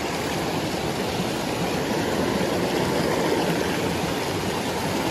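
Shallow creek water rushing and splashing over rocks, a steady, even rush.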